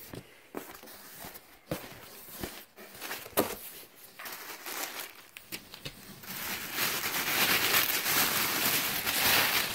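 Cardboard box flaps handled with scattered light taps and rustles, then tissue paper crinkling continuously and louder from about six seconds in as it is pulled aside.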